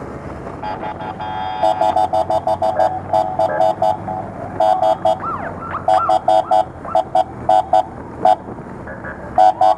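Police motorcycle horns blasting in rapid short bursts, several a second, with a few brief rising-and-falling siren whoops in the middle, over the low running of the motorcycles' engines.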